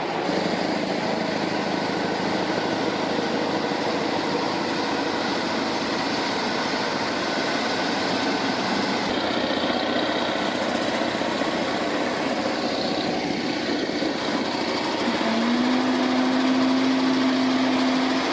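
Heavy truck engine running under load, a continuous drone. About fifteen seconds in, a steady tone rises slightly in pitch and holds.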